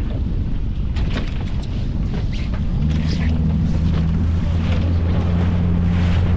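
Wind buffeting the microphone and water splashing against a small boat's hull, with a steady low boat-engine hum coming in about three seconds in.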